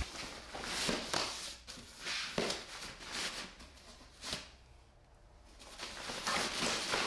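Thin nylon waterproof cover rustling and swishing in short strokes as it is pulled out and stretched over an ATV's front cargo bag, with a break of about a second just past the middle.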